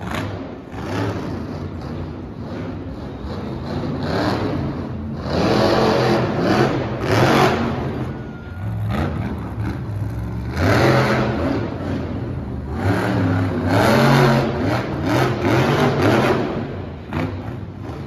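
Monster truck's supercharged V8 revving up and down, swelling loud several times in a row.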